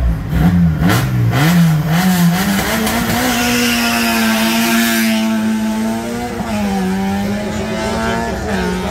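Peugeot 106 competition car's engine revving at the start line, then pulling away under hard acceleration, its pitch rising and holding high. The pitch then drops twice, about six and a half and eight and a half seconds in, at upshifts.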